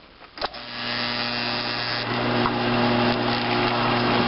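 A Grizzly mill-drill is switched on with a click about half a second in. Its motor and spindle spin an end mill up to speed, then run with a steady hum, whose tone shifts slightly about two seconds in.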